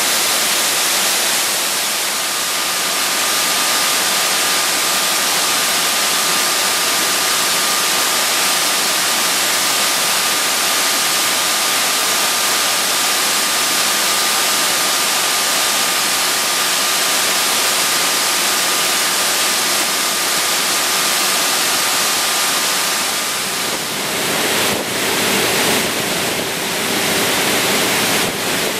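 Water pouring down inside a working cooling tower like a heavy downpour, a loud steady rushing hiss. A thin steady whine runs under it and stops a little before the end, when a lower hum and uneven swells come in as the big draft fan comes into view.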